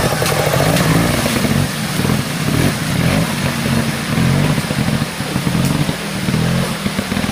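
Trials motorcycle engine revving up and down in short bursts as it is ridden up a rocky stream, with water splashing and rushing under the wheels.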